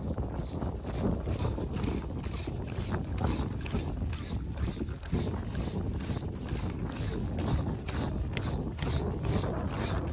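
Spinning fishing reel being cranked to retrieve line: an even ratcheting clicking, about three a second, over low wind noise.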